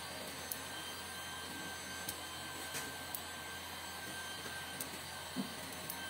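Steady fan-like whir with a thin high whine, and a scattering of light, sharp clicks as SC fiber connectors are handled and plugged into the through-wall adapter.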